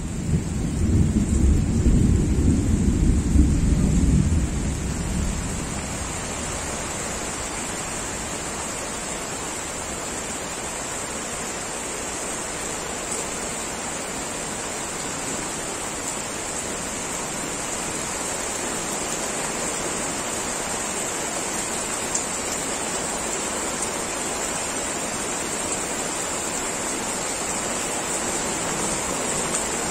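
Heavy rain falling steadily, with a low rumble of thunder in the first few seconds that dies away about five seconds in.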